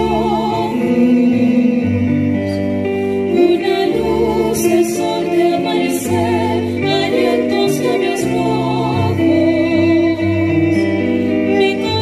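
Two women's voices singing a song with vibrato, accompanied by piano and violin.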